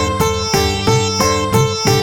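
Instrumental introduction to a Malayalam devotional hymn to the Holy Spirit: a quick melody of sharply struck notes, several a second, over held tones and a steady bass beat.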